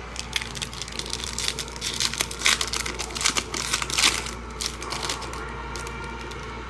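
Foil trading-card pack wrapper crinkling as it is handled and opened: a dense run of crackles and rustles for about four seconds, then only a few scattered ones.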